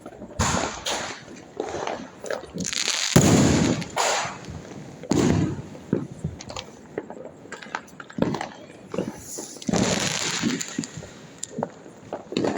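Firecrackers and fireworks going off: a string of bangs and pops with crackling between them, the loudest bang about three seconds in.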